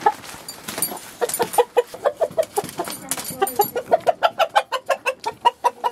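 A chicken clucking: a long run of short, quick calls, several a second, coming faster and more evenly in the second half.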